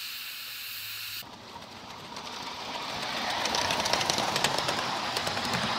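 Steady high steam hiss from a standing 1/8-scale live-steam Pennsylvania K4sa locomotive, cut off about a second in by the rush of the locomotive passing close at speed. It grows louder, with rapid sharp clicks of the wheels running over the track.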